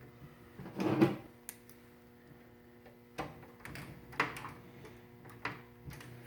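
A few separate clicks and knocks of hardware being handled in a desktop PC case as a graphics card is screwed in and checked, with a faint steady hum underneath; the loudest knock is about a second in.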